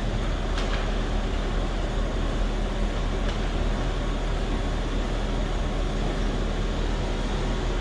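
Overhead sectional garage door being lowered by its opener: a steady mechanical hum with no banging or scraping, the door running without binding.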